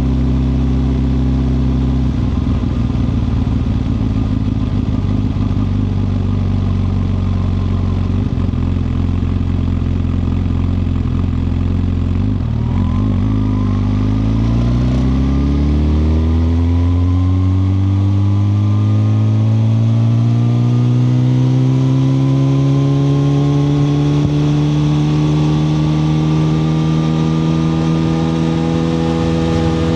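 2021 Suzuki GSX-R1000R's inline-four engine running at low revs. About halfway through, the pitch dips briefly, then climbs steadily as the revs rise in one long pull, levelling off near the end.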